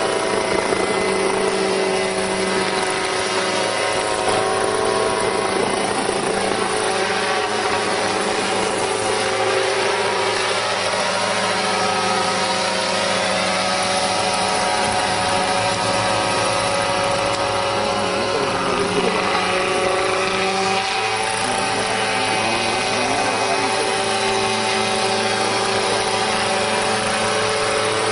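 Small unmanned crop-spraying helicopter spraying pesticide, its engine and rotor running steadily, the pitch shifting slightly about halfway through.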